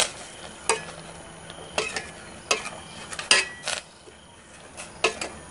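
A utensil stirring a soupy curry in a stainless steel pot, clinking and scraping against the pot's side several times at irregular intervals.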